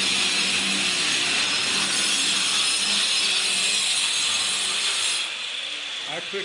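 Handheld electric power tool running steadily with a loud, high hiss, held overhead against the block wall and raising dust. It stops about five seconds in.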